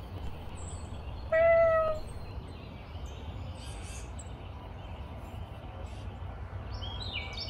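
A single cat meow about a second in, lasting under a second and falling slightly in pitch, over a low steady background rumble; near the end a run of short high plinking notes begins.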